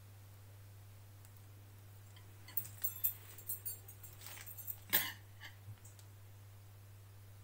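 Light clinks and knocks from handling a cake on its glass serving plate, a scattered run of them with the loudest knock about five seconds in, over a steady low electrical hum.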